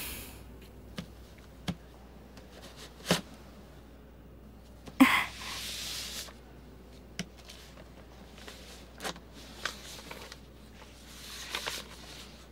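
Handling sounds of a rolled painting and its drawing tube: a few soft knocks, a scraping rush lasting about a second, about five seconds in, as the paper roll slides out of the tube, and paper rustling near the end as the painting is unrolled.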